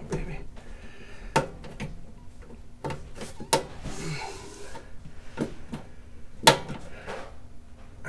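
Irregular sharp clicks and knocks of a stubby screwdriver and hand against the furnace's sheet-metal burner compartment while working loose a tight flame sensor mounting screw, with soft handling noise between them. The loudest knock comes about six and a half seconds in.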